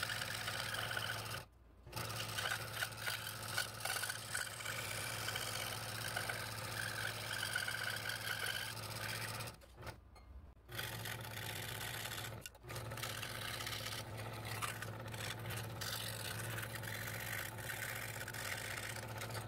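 Scroll saw running, its fine number 3 blade cutting small interior letter openings in thin walnut: a steady hum with a light rasping from the blade in the wood. The sound breaks off briefly three times, near the start, around the middle and a little after.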